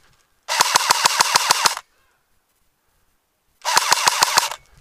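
Cyma CM045A AKS-74U-style airsoft electric gun firing two full-auto bursts, about a second and a half and then about a second long, with a pause of nearly two seconds between them.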